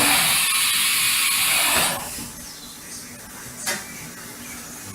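A burst of compressed air hissing loudly for about two seconds, then stopping. A single sharp click follows a couple of seconds later.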